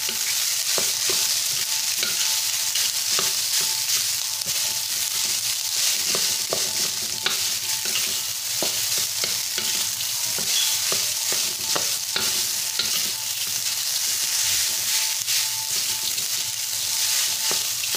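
Rice stir-frying in hot oil in a wok: a steady sizzle, with frequent light knocks and scrapes of a wooden spatula against the pan as the rice is tossed.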